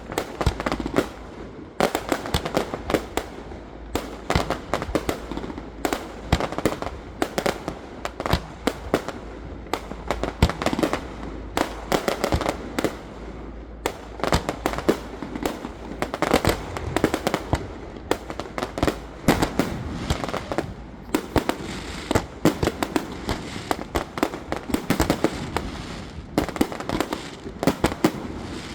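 Fireworks display: a dense, continuous run of bangs and crackling bursts, many per second, coming in louder waves.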